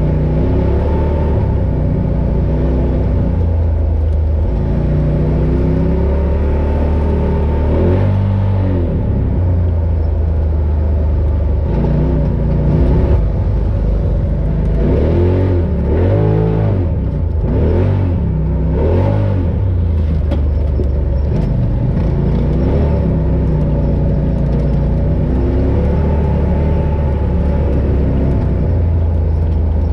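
Polaris RZR Pro XP side-by-side engine running under way off-road, its pitch rising and falling as the throttle opens and closes, with several quick revs in the middle.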